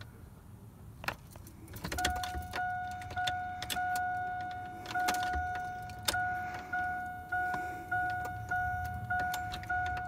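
A 2000 Chevy Silverado's dashboard warning chime dinging over and over, a little under twice a second, after a couple of sharp clicks as the key is worked in the ignition. The engine does not crank: the newly fitted ignition switch still needs adjusting.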